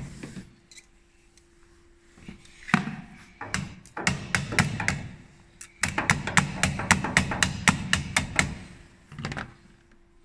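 Hands knocking and pressing the plastic windscreen cowl panel of a Renault Megane 2 down into its clips and seal: a series of sharp plastic knocks and taps, scattered at first, then several a second for a couple of seconds past the middle.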